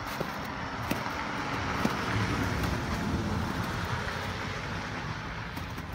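Steady outdoor rumble and hiss that swells slightly about two seconds in, with a few faint clicks.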